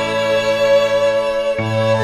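Slow, calm instrumental background music with long held notes over a sustained low note; the low note breaks off briefly near the end and comes back.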